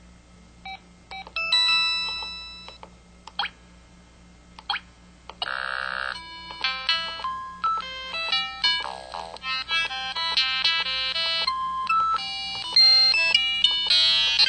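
KTF-T1000 mobile phone's built-in sound effects played one after another through its small speaker: a few short chimes and beeps with gaps between them, then from about five seconds in a busier run of quick electronic melody notes.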